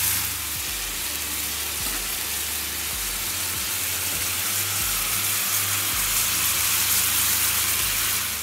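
A frying pan of sea bream fillets wrapped in Parma ham, sizzling and bubbling steadily in a white-wine sauce.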